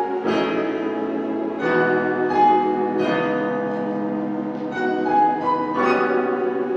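Lo-fi instrumental music, with held chords and new notes coming in about every second and a half.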